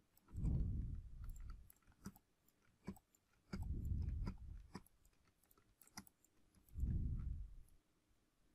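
Scattered light clicks from working a computer, irregularly spaced, with three louder low, muffled sounds of about a second each, near the start, the middle and the end.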